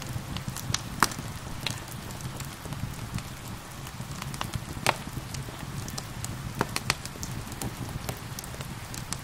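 Wood fire crackling, with many sharp pops, the loudest about a second in and about five seconds in, over a steady bed of gentle rain.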